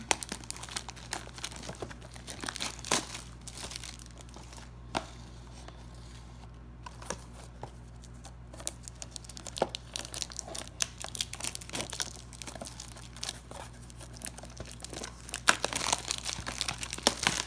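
Plastic shrink wrap being torn and peeled off a cardboard box, crinkling with many sharp crackles. The crackles are sparse in the middle and come thickest near the end.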